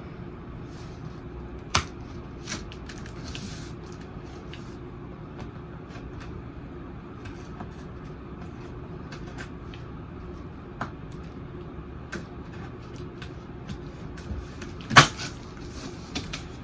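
Cardboard box being cut and pried open with scissors: scattered clicks, scrapes and handling noises over a steady low hum. There is a sharp knock about two seconds in and a louder one near the end.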